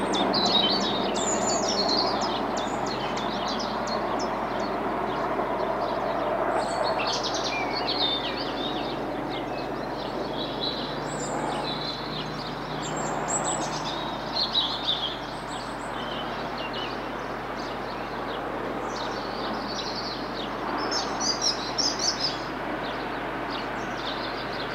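Small birds chirping and singing over a steady rushing background that eases off over the first several seconds.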